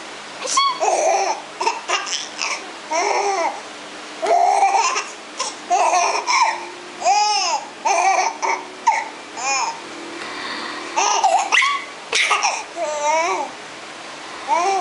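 A baby laughing and babbling in many short, high-pitched bursts, each rising and falling in pitch.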